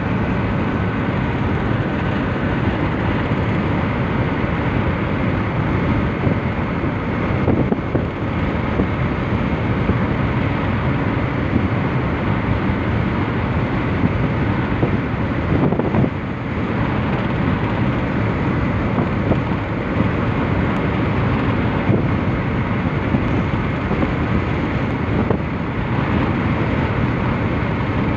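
Steady road and wind noise heard inside a car cruising along a motorway, with no breaks or sudden sounds.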